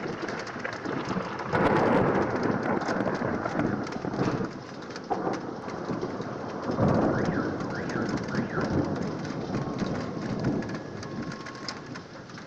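Thunderstorm sound effect: steady heavy rain with rolls of thunder, swelling loudest about two seconds in and again about seven seconds in.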